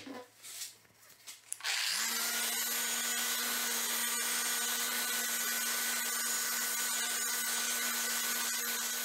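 A few light handling knocks, then an electric power tool switches on a little under two seconds in, spins up quickly and runs steadily at speed with a strong high hiss.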